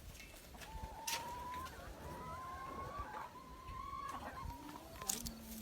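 A chicken giving a long, drawn-out call at a fairly steady pitch for about three seconds, broken a couple of times, with a few sharp clicks about a second in and near the end.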